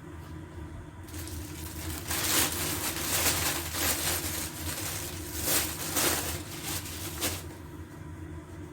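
Packaging rustling and crinkling as it is handled, with irregular crackles from about a second in until near the end, over a steady low hum.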